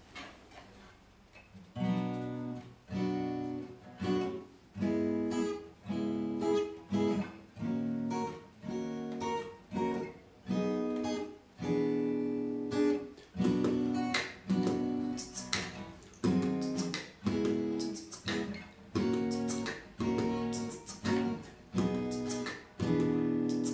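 Taylor cutaway acoustic guitar, capoed, played in a steady strummed rhythm from about two seconds in. The chords fall roughly once a second, each one cut short before the next.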